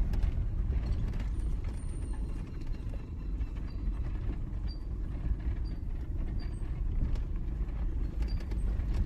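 Off-road vehicle driving on a gravel road: a steady low rumble of tyres and drivetrain, with scattered light clicks and rattles.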